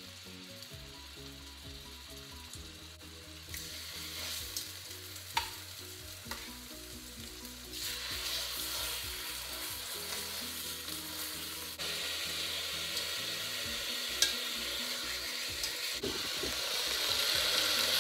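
Lamb steaks sizzling as they sear in the hot inner pot of a slow cooker on the stovetop. The sizzle grows louder in steps as more pieces are laid into the pot, with a few sharp clicks along the way.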